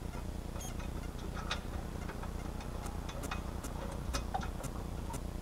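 Scattered faint clicks and light taps of hand work on the car's underside, over a steady low hum.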